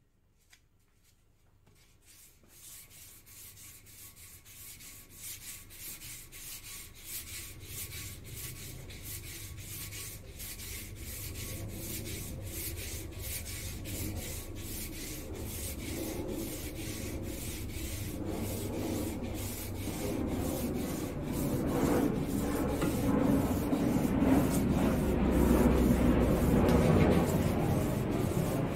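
Hand sanding the primed rim of a spoked metal wheel with a flat sanding board while the wheel is spun by hand on its dowel shaft. It is a rhythmic rasping rub that starts about two seconds in and grows steadily louder, smoothing the filler primer.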